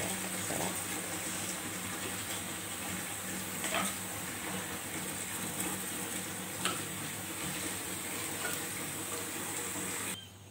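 Water with sliced sponge gourd and shrimp in a wok, heating to a boil: a steady watery hiss with a few faint ticks. It cuts off abruptly near the end.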